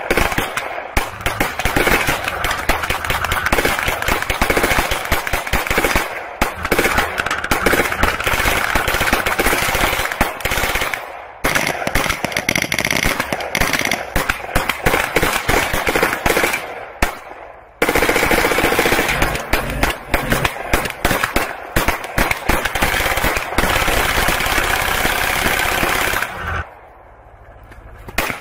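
Rapid automatic rifle fire in long continuous strings, with short breaks about 6, 11 and 18 seconds in and a longer lull near the end.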